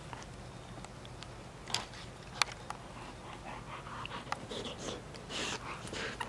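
Rottweiler puppy chewing and mouthing its toys: scattered small clicks, with short breathy sounds coming more often in the last couple of seconds.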